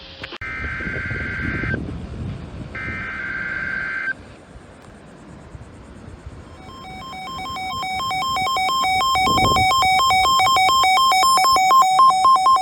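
Two bursts of Emergency Alert System digital data tones, the two-pitch header of an alert. About six seconds in, an electronic alert attention tone starts, pulsing rapidly between two pitches and growing steadily louder.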